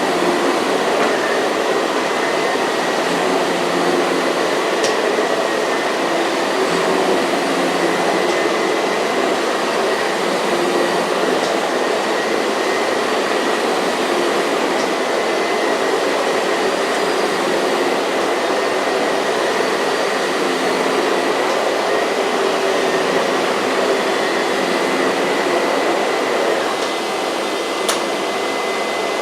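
A 30-year-old Miele S234i canister vacuum running with a Sebo ET-1 electric powerhead over a rug: a steady rush of suction with a thin, steady high whine. A few faint ticks come through now and then.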